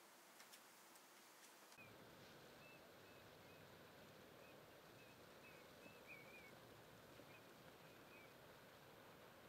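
Faint ambience: a steady hiss with small birds chirping briefly now and then, setting in about two seconds in after a few faint ticks.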